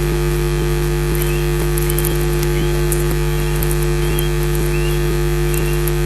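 Strong steady electrical hum and hiss, through which a male osprey's display calls come faintly: short whistled notes now and then, given during its sky-dance flight.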